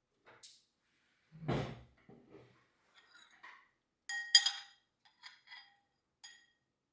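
Kitchenware being handled: a dull thump of something set down, then a sharp ringing clink a little past the middle, followed by three lighter clinks with the same ring.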